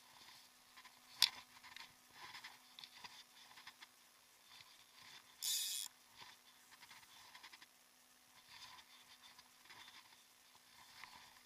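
Faint handling noises of a fly rod and line during casting: scattered small ticks and rustles, a sharp click about a second in, and a short hiss about halfway through.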